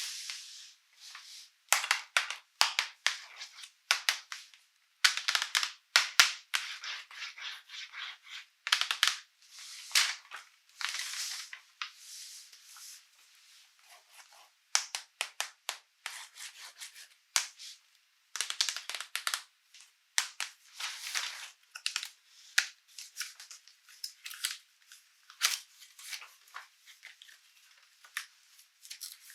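Toy packaging and plastic toy parts handled close to the microphone: irregular crinkling, tearing and clicking in quick runs, with short pauses.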